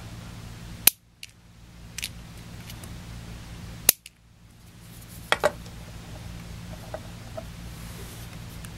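A Lucerne two-speed locking power-tool trigger switch clicking as it is worked by hand. There are two sharp clicks about three seconds apart, then a quick pair of softer clicks and a few faint ticks, over a steady low hum.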